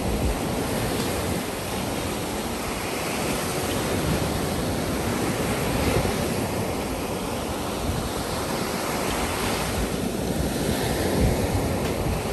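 Rough sea surf breaking and washing up onto a sandy beach, a continuous rush that swells and ebbs as each wave comes in.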